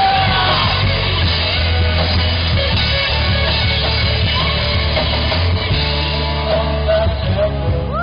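Live alt-rock band playing: electric guitars, bass guitar and a drum kit, with a male voice singing over them.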